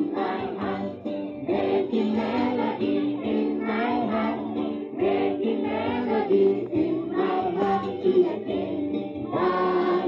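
A crowd of children and young people singing together as a group, many voices at once with no clear instrument.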